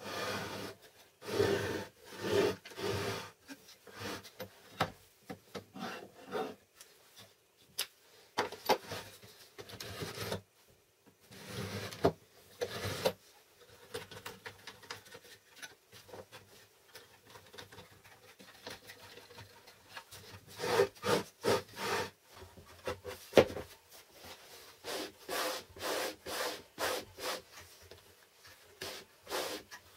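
Homemade plywood table-saw angle-cutting jig being handled: wooden parts rubbing, sliding and knocking together in short irregular strokes as its hinged angle arm is adjusted. Near the end, a run of quick regular rubbing strokes as the jig is slid back and forth along the table saw's fence.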